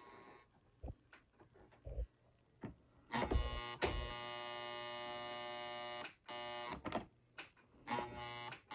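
American Flyer pre-war Pacific toy steam locomotive buzzing under power without moving: a steady electric buzz for about three seconds, then two shorter bursts, after a few faint clicks. The owner suspects a stuck E-unit (reversing unit).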